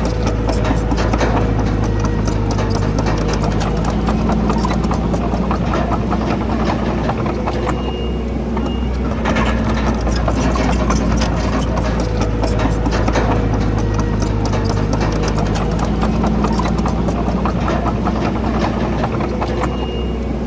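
Komatsu D31PX bulldozer's diesel engine running steadily while working, with a constant clatter of clanking steel tracks and rocks. A brief high squeal comes twice, about eight seconds in and near the end.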